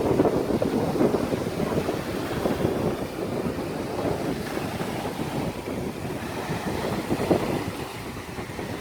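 Small sea waves washing on the shore, with wind buffeting the microphone. The rushing noise eases off slightly toward the end.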